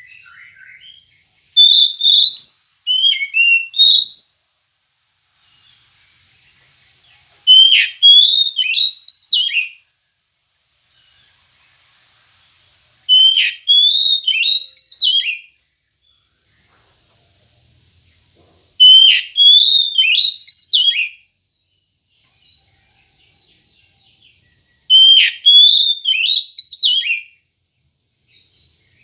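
Oriental magpie-robin (kacer) singing. It gives five loud phrases of clear, sliding whistled notes, each two to three seconds long and about six seconds apart, with faint soft twittering in the gaps.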